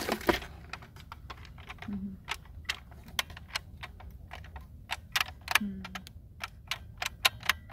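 Irregular sharp clicks and taps of hard plastic parts of a Nerf Stryfe toy blaster being handled, a few of them louder than the rest.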